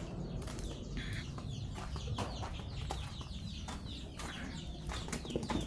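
A flock of chickens clucking, many short calls in quick succession.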